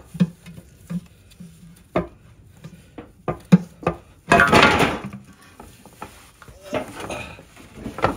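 Metal tools and parts clinking and knocking under a car as the oil pan is unbolted and worked loose, with a burst of scraping and clatter a little past four seconds in.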